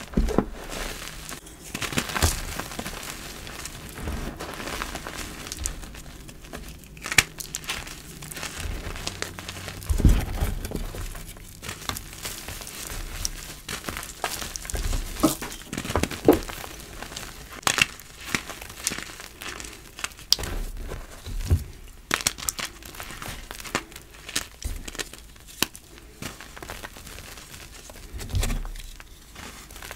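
Hands crushing and crumbling blocks of reformed gym chalk into powder: irregular crisp crunches and crackles, with a few heavier thuds, the loudest about ten seconds in.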